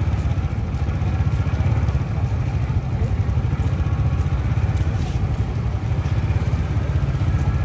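Motorbike engines running as scooters ride along a busy lane, heard as a steady low rumble with general street noise above it.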